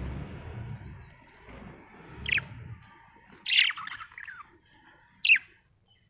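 Budgerigar chirping: a few short, quick chirps that glide downward in pitch, the loudest about three and a half and five seconds in. A low rumbling noise runs under the first half.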